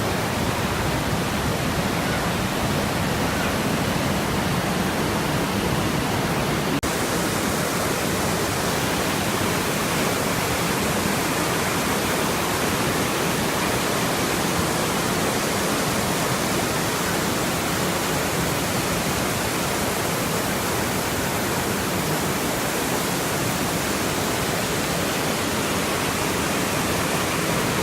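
Steady, loud rushing noise with no distinct events, changing slightly in character about seven seconds in.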